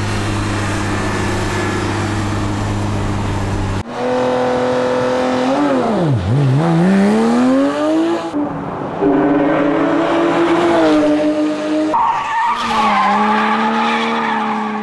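A Porsche 911 GT3 RS's flat-six engine driven hard on a race track. Its pitch falls steeply as the car slows for a corner, then climbs again under acceleration, with several steps at the gear changes. This follows a few seconds of a steady engine note.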